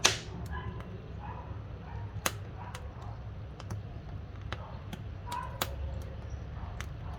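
Wood fire burning in a wood-burning stove, crackling with sharp pops at irregular moments over a low steady rumble; a loud pop comes right at the start and louder ones about two and five and a half seconds in.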